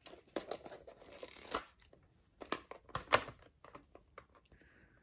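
Hard plastic cassette cases handled and knocked together as a rubber band is pulled off the stack: a run of clicks and clacks with scraping rustles, the sharpest clacks about two and a half to three seconds in.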